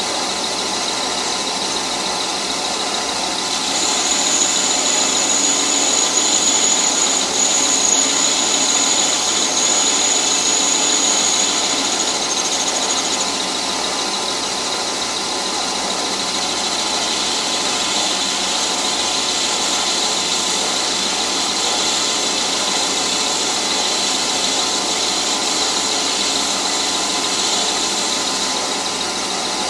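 Metal lathe running as the cutting tool turns a taper on a spinning round bar, fed by the compound slide. A thin high-pitched squeal from the cut sits over the steady machine noise from about four seconds in until about a third of the way through.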